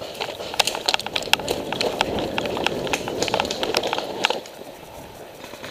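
Hurried footsteps crunching over dry leaves, wood chips and twigs, with sharp snaps and crackles among them; the steps stop about four seconds in.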